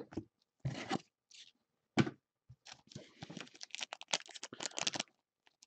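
Upper Deck hockey card pack's shiny wrapper crinkling and tearing as gloved hands open it: a few separate crackles, a sharp one about two seconds in, then a dense run of rapid crinkling.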